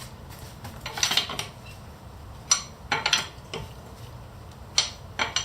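Metal clinks and clicks of a socket wrench working on a car wheel's lug nuts, snugging them down by hand: a few separate sharp clinks, some in quick pairs.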